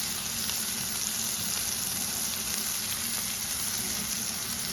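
Filet mignon steaks sizzling steadily in butter on a hot flat-top griddle.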